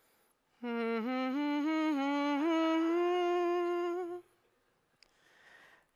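A slow, mournful melody on a single sustained, voice-like line. It starts about half a second in, climbs in small steps, holds a higher note with a slight waver, and stops after about three and a half seconds.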